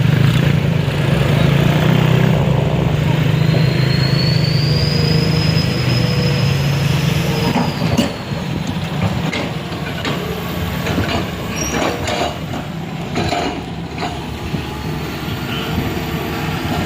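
A heavy vehicle's engine running loudly. About eight seconds in there is a sharp knock, after which the engine sound drops and scattered clanks and knocks follow.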